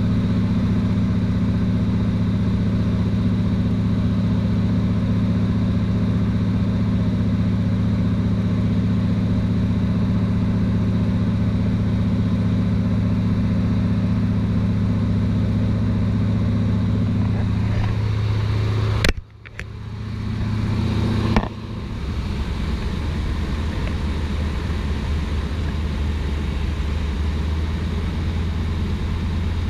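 Steady engine drone that cuts off abruptly about two-thirds of the way through. After a brief gap it gives way to a second steady drone, lower in pitch.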